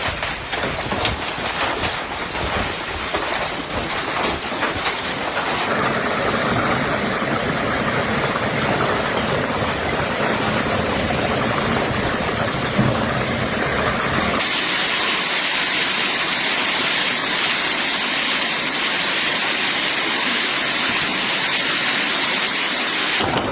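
Heavy storm downpour, a steady rushing hiss of rain that changes character abruptly twice.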